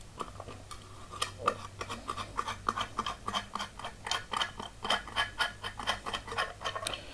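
Irregular light clicks and taps of hands handling an angle grinder and its cutting disc, small hard parts knocking together several times a second.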